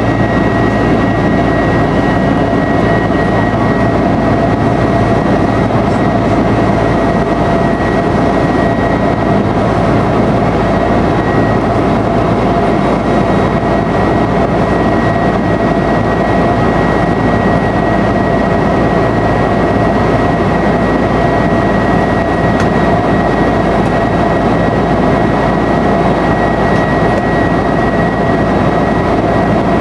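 Airbus A330-200 airliner heard from inside the cabin during the climb after takeoff: the jet engines run at a steady drone, with two steady whines over an even rumble.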